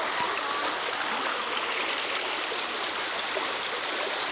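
Stream water running steadily, an even rushing hiss with no breaks.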